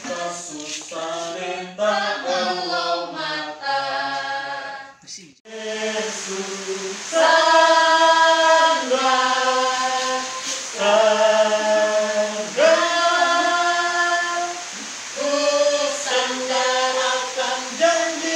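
A small group of voices, mostly women, singing together unaccompanied in long held notes, choir-style. The singing breaks off briefly about five seconds in, then resumes louder.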